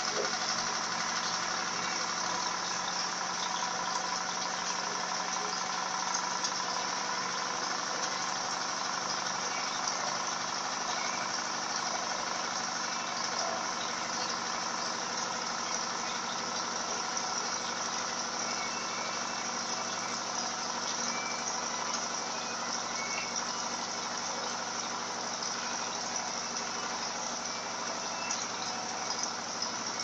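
Electrolux Turbo Economia 15 kg (LTD15) top-loading washing machine in its spin cycle: the basket spins at speed with a steady motor hum and whine.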